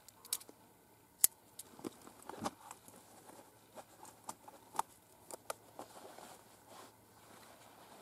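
Scattered light clicks and rustles of small items and clothing being handled, with one sharper click about a second in.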